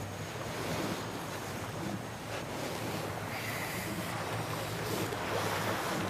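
Ocean surf washing onto a beach, a steady rushing noise.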